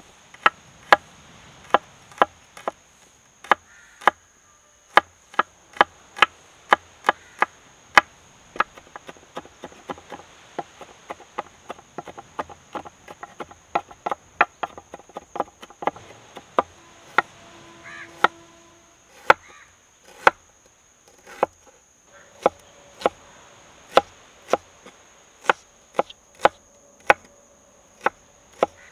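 Broad-bladed knife chopping garlic and then ginger on a wooden chopping board: sharp knocks about two a second, quickening to a faster run of chops in the middle, with a short pause about two-thirds through. A steady, high insect buzz runs beneath.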